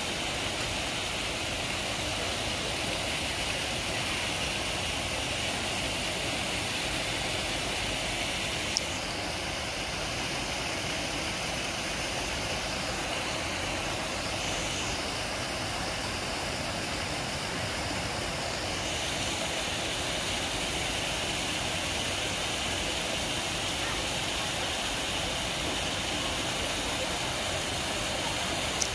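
Steady rushing background noise with one sharp click about nine seconds in.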